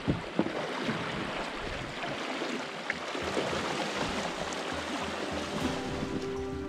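Shallow river rapid rushing steadily, a class one riffle being waded through. Music comes in near the end.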